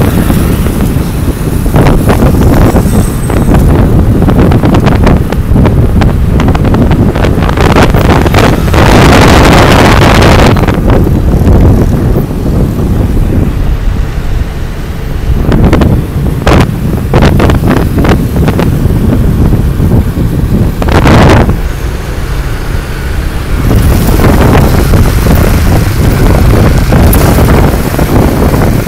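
Wind buffeting the microphone while riding a motor scooter at speed, over the scooter's engine and road noise, with a stronger gust about nine seconds in.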